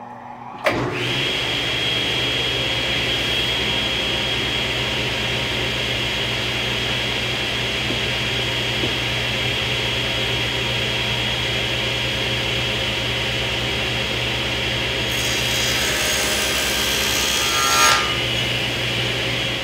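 Table saw starting up about a second in, then running steadily with a high whine while its blade rips a sheet of half-inch plywood. The sound grows harsher for a few seconds near the end, then eases back to the saw running.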